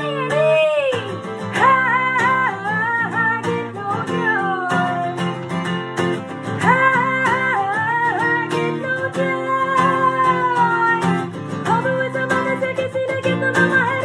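A woman singing while strumming a steel-string acoustic guitar, her voice holding long notes that slide up and down, with a long falling note near the end.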